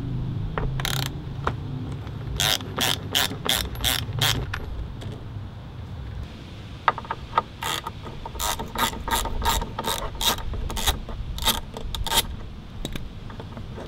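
Hand socket ratchet clicking as it is swung back and forth to back out a small 10 mm bolt. The clicks come in two quick, evenly spaced runs, the longer one in the second half.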